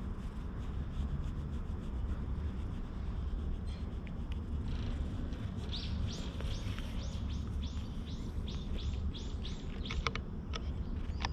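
A songbird calling: a quick run of about a dozen high, downward-sliding notes, roughly three a second, starting about six seconds in, then a single high rising note near the end. Under it is a steady low rumble.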